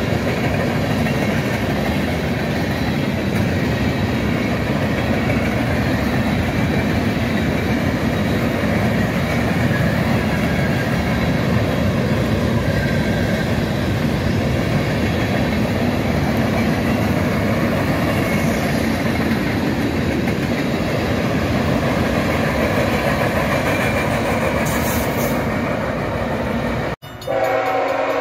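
Norfolk Southern train rolling past with a steady rumble of wheels on the rails. Near the end the sound cuts off abruptly, then a train horn sounds a steady multi-note chord.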